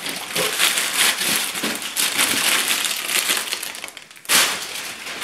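Rustling and crinkling of packaging as a cloth dust bag holding a leather duffle bag is pulled up out of a cardboard box, with a sharper crunch about four seconds in.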